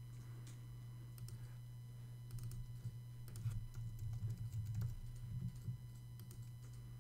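Faint typing on a computer keyboard, in short irregular runs of keystrokes, over a steady low hum.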